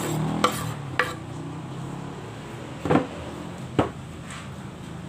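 A kitchen knife knocking and scraping on a wooden chopping board as chopped onion and garlic are pushed off it: four short sharp knocks, two in the first second and two more about three and four seconds in.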